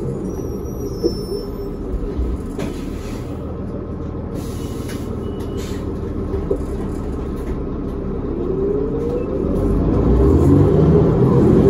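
Interior of a New Flyer D40LF diesel bus with a Cummins ISL engine and ZF Ecomat automatic transmission. The engine winds down and idles while the bus stands, with a brief click and hiss of air. From about two-thirds of the way in, the engine and transmission note rises as the bus pulls away, growing louder near the end.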